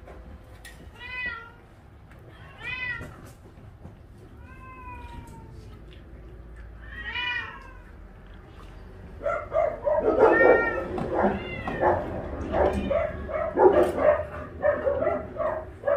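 Cats meowing: single drawn-out meows every couple of seconds, then from about nine seconds in a louder, denser run of overlapping meows.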